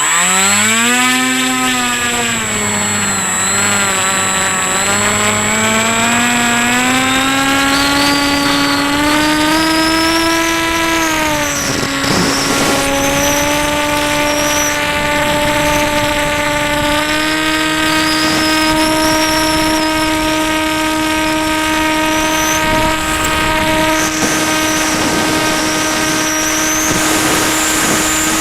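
Electric motor and pusher propeller of a Ranger EX FPV plane, heard from on board: it starts abruptly, then runs as a steady pitched drone whose pitch dips, climbs over the first ten seconds or so, and settles higher for the rest.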